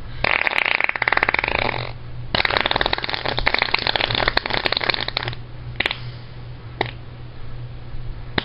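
A person making imitation fart noises with breath: two long sputtering, fluttering raspberries, then two short puffs.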